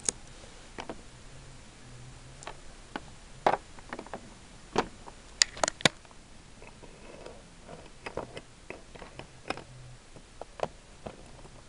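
Scattered small clicks and taps of plastic Littlest Pet Shop figurines being handled and knocked against a plastic toy set, with a cluster of sharper clicks between about three and a half and six seconds in.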